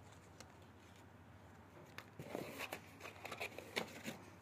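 Paper instruction booklet and card being handled: a cluster of rustles and light clicks starting about two seconds in.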